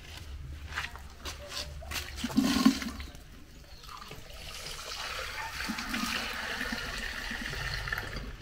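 Water running from an outdoor standpipe tap into a glass bowl. It is loudest briefly about two and a half seconds in, then runs steadily as the bowl fills.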